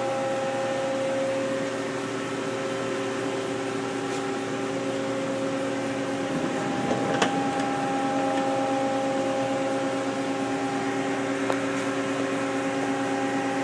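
Steady machine hum with several steady tones, like a pump and fans running, broken by a sharp click about seven seconds in and a lighter one near the end.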